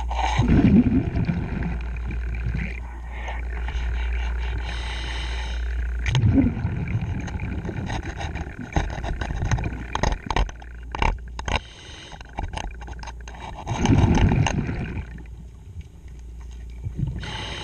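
A diver breathing through a regulator underwater: exhaled bubbles rumble out every seven seconds or so, with the hiss of each inhaled breath between them. A metal scraper clicks and scrapes against the propeller shaft in the middle stretch.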